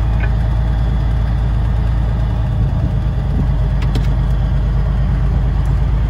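Truck engine running steadily at low speed, heard from inside the cab, with road noise and a few light clicks about four seconds in.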